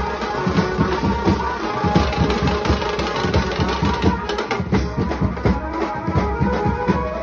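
Live procession band playing loud, fast drumming on a drum kit and a row of drums with cymbal crashes, over a held melody line.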